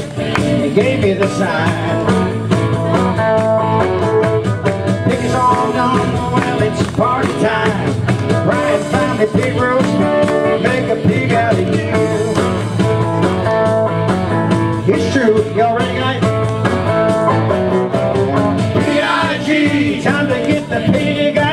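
Rock-and-roll band playing live: electric guitar with a group of people singing into microphones.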